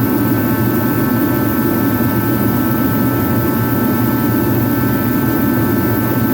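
Craftsman 80,000 BTU kerosene/diesel forced-air heater running after its thermostat is turned up: the fan and burner make a loud, steady rush with an even whine above it.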